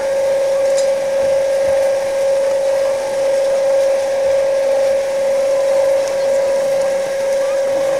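A loud, steady hum held at one constant pitch, with faint voices of people on the slope behind it.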